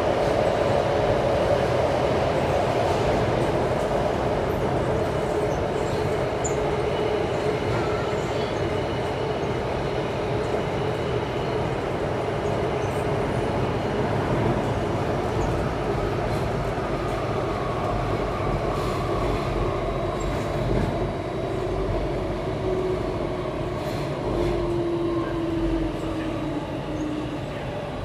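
Inside an Alstom C751A metro train running through a tunnel: a steady rumble of wheels on rail with a faint whine over it. Near the end the whine slides slowly down in pitch as the train slows.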